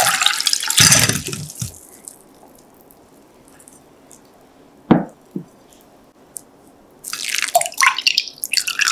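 Water and sliced sweet potatoes poured from a glass bowl through a stainless mesh strainer, splashing into the glass bowl beneath; the pour ends about a second in with a low thud. A single knock near the middle, then water draining and dripping from the lifted strainer into the glass bowl near the end.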